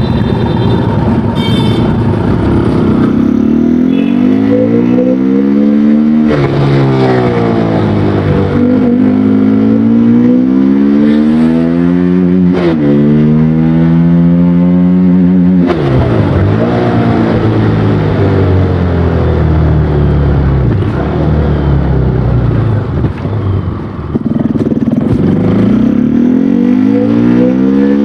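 KTM Duke 200's single-cylinder engine and exhaust under throttle: the pitch climbs, drops sharply, and climbs again three times, then falls away slowly and rises once more near the end.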